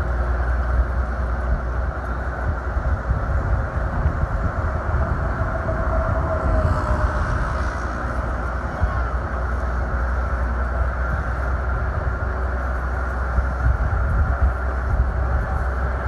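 Steady rumble of an early-1950s Chevrolet convertible driving along, engine and road noise heard from inside the open car.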